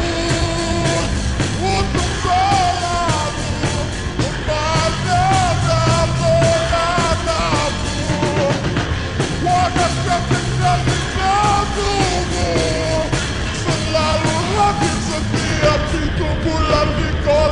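Rock song played by a full band, with singing over a steady loud mix; the lead melody bends and wavers in pitch.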